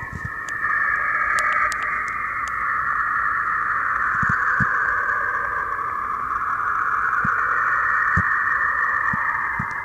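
A 'sound of a planet' space sonification playing: a steady, hissing whoosh that stays high in pitch, with a few faint clicks, cutting off suddenly near the end.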